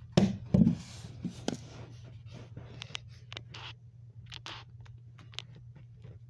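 Handling noise: two hard bumps about a quarter and half a second in, then a run of short scratching and rustling sounds as a plush toy is moved about against the phone. A steady low hum runs underneath.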